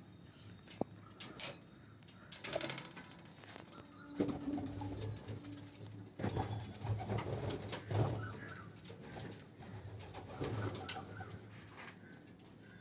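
Domestic pigeons cooing in a loft, a soft low call repeated through the middle and second half, with a few wing flaps and short high chirps in the first half.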